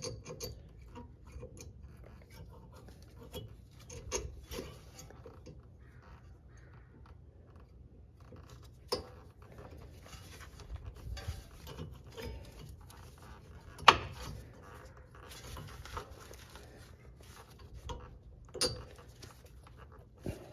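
Metal scraping and clicking of a brake pad's steel backing plate being worked into a disc-brake caliper bracket and its clips, with light rubbing throughout and three sharper clicks, the loudest about two-thirds through.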